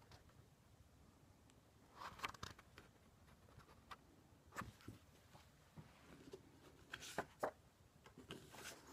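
Near silence: room tone, with a few faint, short clicks and rustles scattered through it.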